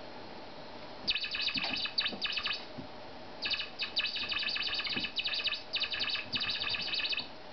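Squeaky toy mouse chirping in rapid, high-pitched stuttering trills as a kitten bats it around. There are two bouts: a short one about a second in, and a longer one from about three and a half seconds until near the end.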